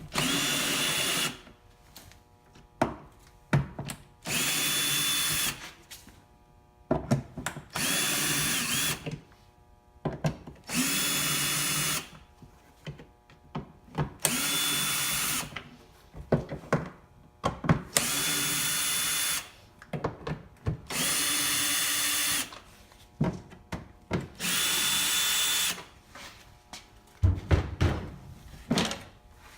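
Power drill with a Torx T25 bit backing out the eight air box lid screws: eight short, steady runs of the drill motor, each about a second or so, a few seconds apart, with small clicks and knocks between them.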